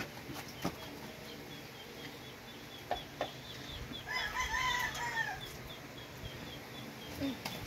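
A rooster crows once, about four seconds in, in one arched call. A faint, rapid, regular chirping runs under it, and there are a couple of light knocks just before.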